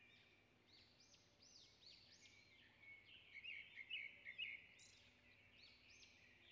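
Near silence with faint bird chirps, a quick cluster of slightly louder chirps coming about three and a half to four and a half seconds in.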